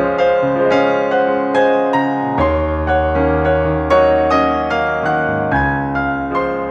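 Background music: a piano melody of steadily struck notes over a held bass.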